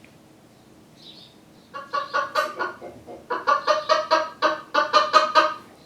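Hen clucking in a fast run of short, repeated calls, several a second, starting a little under two seconds in.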